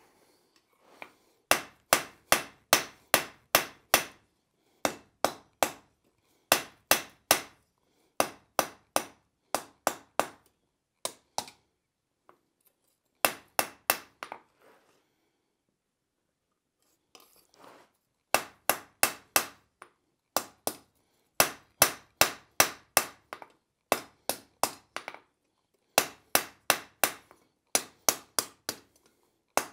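Hand hammer striking a red-hot steel bar on an anvil: sharp blows in runs of four to six at about three a second, with short pauses between runs and a few seconds' break about halfway through.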